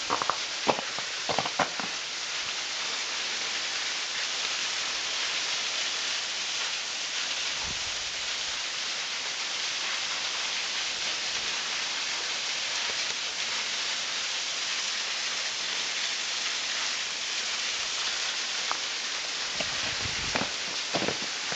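Waterfall pouring and splashing in a steady, even hiss like heavy rain. A few sharp clicks come in the first couple of seconds and again near the end.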